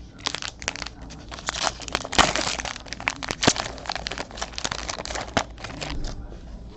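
Foil trading-card pack wrapper being torn open and crinkled in the hands, a dense run of crackles that dies away near the end.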